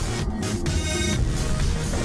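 Music with a steady, fairly even loudness.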